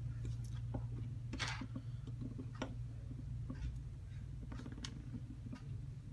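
Small metal clicks and short scrapes of an Allen key working the tiny screws out of an airsoft gun's bolt stopper, over a steady low hum.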